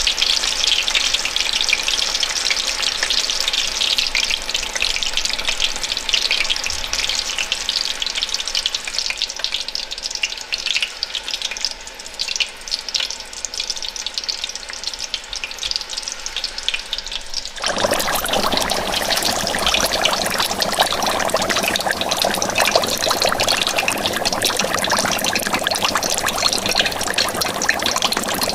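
Chicken frying in hot oil in a pan, a steady dense crackling sizzle. About two-thirds through it changes abruptly to a louder, fuller hiss that runs on steadily.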